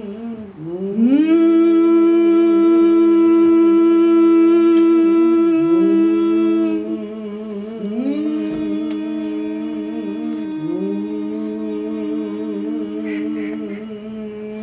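Voices humming wordless sustained notes in harmony. A lower note wavers and every few seconds dips and slides back up. A louder, higher note slides up into a long held tone about half a second in, breaks off after about six seconds, then slides up and holds again until near the end.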